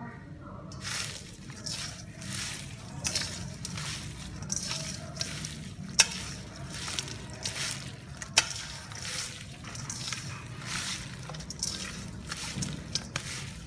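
Hands tossing and squeezing raw chicken with shredded lemongrass and orange leaves in a stainless steel bowl: repeated wet squishing and rustling strokes, with two sharp clicks against the metal bowl about six and eight seconds in.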